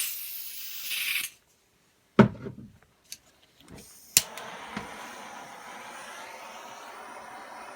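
Jeweler's soldering torch: a brief hiss, a loud knock and a few clicks as the torch is handled, then a sharp click a little past four seconds, after which the flame burns with a steady hiss.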